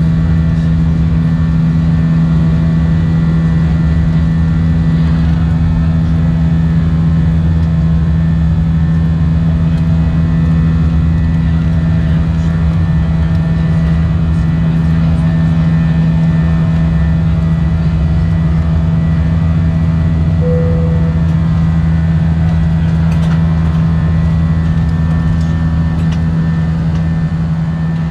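Steady drone of an Airbus A320's IAE V2500 turbofan engines heard inside the cabin in flight: a low rumble with a strong steady hum. A brief tone sounds about two-thirds through, and the sound fades away near the end.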